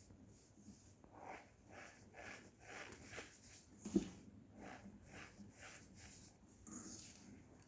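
Cornstarch being squeezed, making a string of soft, squeaky crunches at about three a second, with one sharper click about four seconds in.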